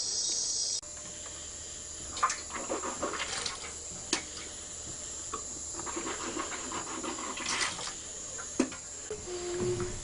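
Night-time rainforest insects. A dense insect chorus cuts off about a second in, leaving a single steady high-pitched insect drone, with scattered clicks and rustles throughout.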